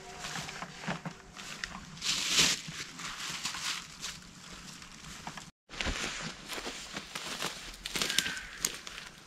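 Footsteps crunching and rustling through leaf litter and twigs on a forest floor, in an uneven walking rhythm. The sound cuts out completely for a moment about five and a half seconds in, then the steps resume.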